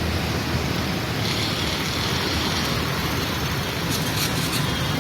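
Busy road traffic: a steady mix of vehicle engines and road noise.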